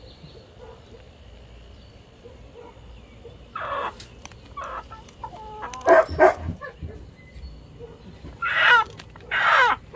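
Hen squawking and clucking in protest while held for wing-feather clipping. The calls start about three and a half seconds in, are loudest around six seconds, and come again twice near the end.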